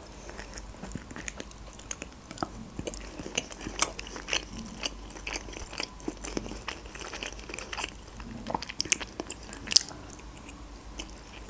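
A person chewing mouthfuls of manti dumplings with sour cream: a steady run of small mouth clicks and smacks. Another bite is taken near the end.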